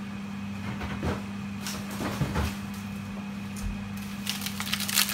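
Knocks and bumps of a freezer being opened and frozen items moved about, over a steady low hum. Near the end, a dense run of crinkling from a plastic bag of frozen dumplings being handled.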